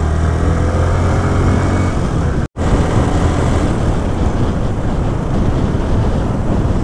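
Yamaha R15 V3's 155 cc single-cylinder engine running under way, heard from on the bike as a steady drone. After a sudden break about two and a half seconds in, wind and road noise take over, with the engine note less distinct.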